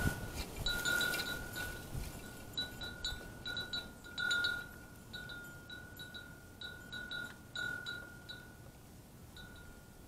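Wind chime ringing, one high note struck over and over, growing fainter near the end.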